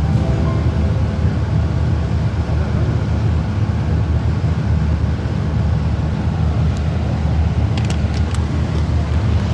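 Lake passenger ferry's engine running with a steady, loud, deep rumble, heard from on deck while under way. A few brief clicks come about eight seconds in.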